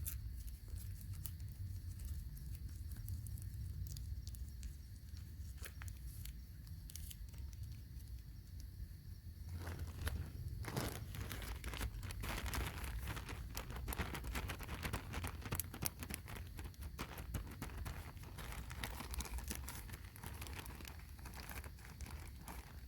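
Crinkling and rustling, sparse at first and then a dense run of crackles from about ten seconds in.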